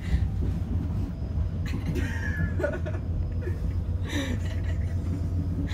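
Steady low rumble of a moving passenger train heard from inside the carriage, with short bits of voice and laughter about two and four seconds in.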